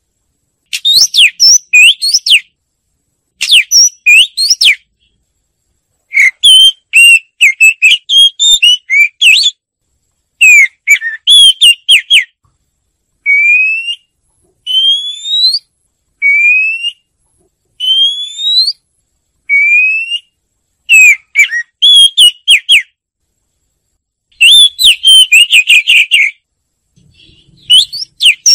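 Oriental magpie-robin singing: short bursts of varied, rapid whistled phrases separated by brief pauses, with a run of single clear whistles sliding upward, about one every second and a half, in the middle.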